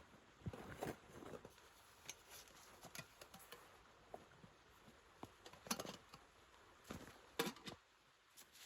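Faint, irregular light knocks, clicks and rustling of small objects being handled, with two sharper knocks near six and seven and a half seconds in.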